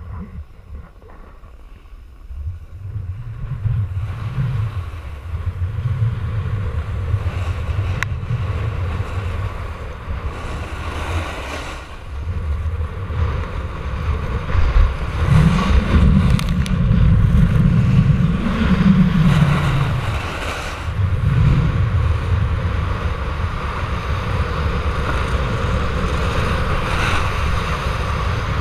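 Wind buffeting the microphone during a fast descent down a groomed ski piste, over the hiss and scrape of snow sliding underfoot. It is quieter at the start and builds up a few seconds in as the run gets going.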